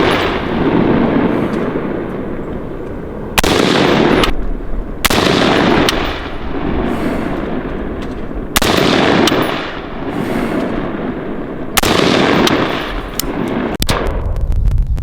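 Single aimed shots from a PAE AR-15 rifle firing 77-grain 5.56 rounds for a slow grouping test. There are four loud reports, spaced unevenly a second and a half to three and a half seconds apart, each trailing a long echo. Near the end comes a quick run of sharper cracks.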